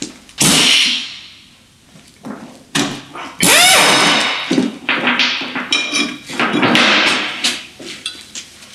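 A wrench working the two 18 mm bolts on a Renault Clio II's front brake caliper bracket, and the bracket coming off the hub: loud metallic clanks and knocks, some ringing briefly, with a quick run of clicks about two thirds of the way through.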